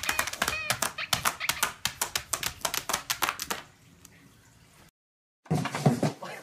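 A dog's claws tapping and scratching rapidly on a tablet's glass screen, several sharp clicks a second for about three and a half seconds, with a few short high chirps about half a second in. After a brief silence near the end comes a short burst of louder, lower rustling.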